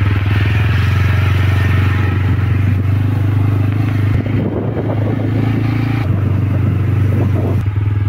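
Motorcycle engine running at a steady cruising speed while riding, a low steady drone with a rushing hiss of wind and road noise over it.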